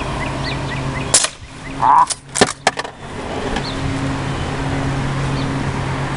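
Umarex Legends Cowboy lever-action CO2 BB rifle fired once about a second in, followed by a short ping and a quick run of clicks as the lever is worked to eject the shell and chamber the next BB. Another shot comes right at the end.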